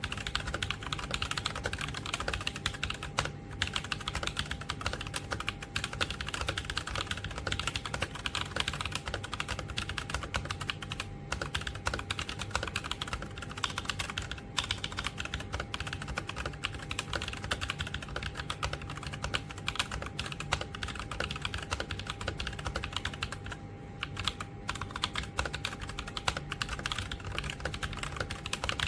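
Continuous fast typing on a mechanical keyboard with Akko V3 Lavender Purple Pro tactile switches, a steady stream of key clacks.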